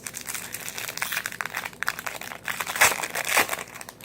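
Foil baseball card pack wrapper crinkling and crackling as it is torn open and handled, loudest about three seconds in.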